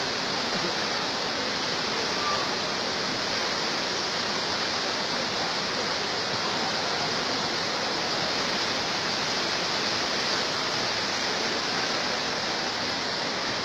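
Fast-flowing floodwater rushing through a flooded street, a steady unbroken noise of churning water.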